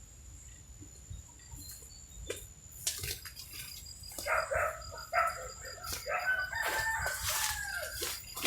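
A bird giving a series of loud, harsh calls that begin about four seconds in, with a longer held call near the end.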